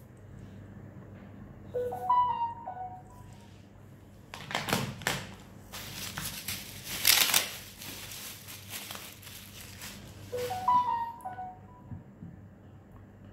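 Plastic packaging crinkling and crackling as it is handled, loudest for a few seconds in the middle. A short tinkly tune of a few stepped notes plays near the start and repeats near the end.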